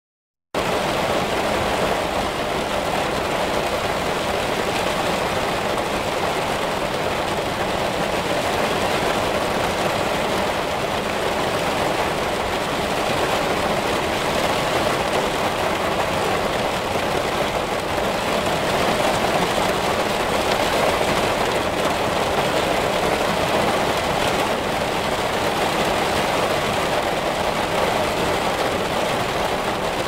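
Heavy rain falling steadily, an even hiss with no thunder claps, starting about half a second in after a brief silence.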